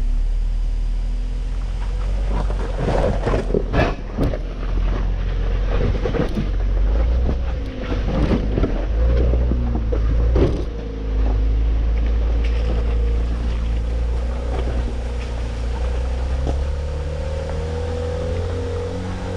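Off-road truck engine running low and steady at crawling speed, with a cluster of knocks and clunks from about three to ten seconds in, as the truck works over rough ground.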